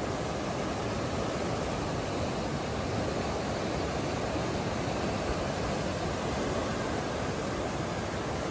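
A steady, even rush of water, with no breaks or separate splashes.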